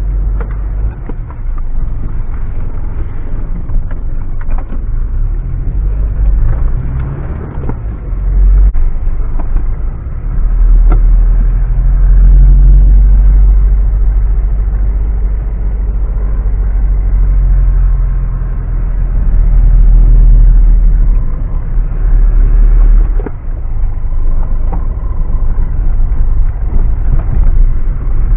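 Mitsubishi Pajero driving off-road: a deep engine and drivetrain rumble that swells and eases several times, with scattered knocks and rattles.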